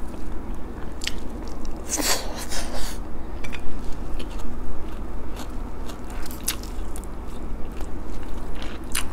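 Close-up mouth sounds of a person chewing a meal of rice, fried dried fish and beef, with scattered sharp clicks of lips and food, and a louder crunchy rustle about two seconds in.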